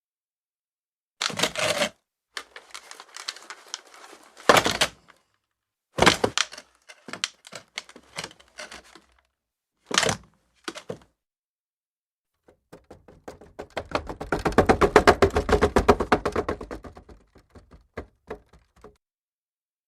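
Wooden chair knocking and scraping on the floor: a few sharp knocks with short rattling scrapes between them, then a long drag of rapid chattering clicks that swells and fades over several seconds near the end.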